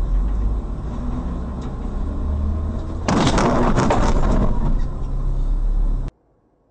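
Vehicle driving on a wet road, with a steady low engine and road rumble. About three seconds in, a louder, rough rushing noise joins and runs until the sound cuts off abruptly about six seconds in.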